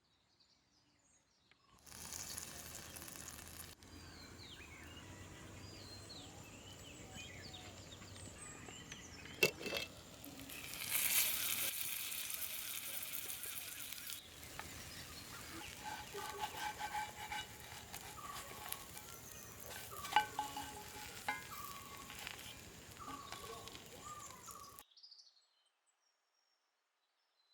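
Birds chirping over a steady hiss, with a louder stretch of hissing about ten seconds in and a couple of sharp clicks; the sound cuts off abruptly near the end.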